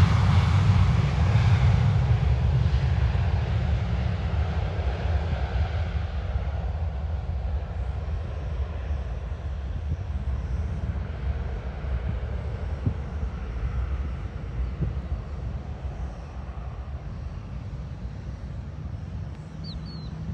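Jet airliner's engines running with a low rumble and a higher whine as the aircraft moves along the runway, fading steadily as it draws away.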